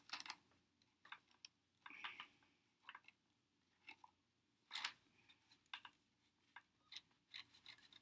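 Faint, scattered small clicks and scratches as hair is picked and pulled out of an upright vacuum cleaner's brush roller against its plastic housing, with near silence between them.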